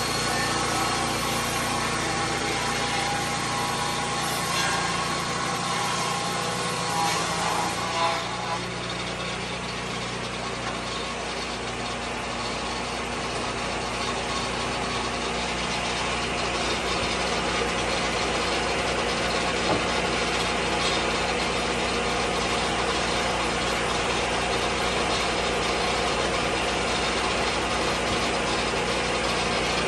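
Engine of a Lucas Mill 10-30 swing-blade sawmill running steadily, its tone changing about eight seconds in.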